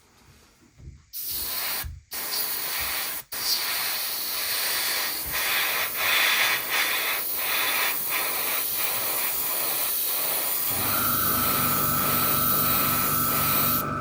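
Airbrush spraying thinned primer: a steady hiss of air that starts about a second in and breaks off briefly twice, then runs on. About ten seconds in, a steady low hum with a whine joins.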